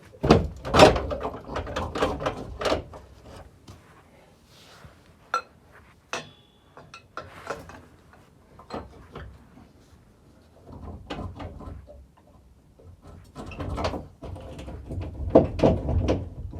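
Repeated metal knocks and clanks as a big hammer is taken to the stuck rear axle beam of a Renault 5 GT Turbo. A dense run of blows comes in the first three seconds, then scattered single knocks, then another run of blows from about ten seconds on.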